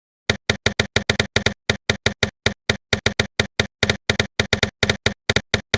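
A rapid, uneven run of sharp clicks, like typewriter keystrokes, about five a second, stopping abruptly near the end.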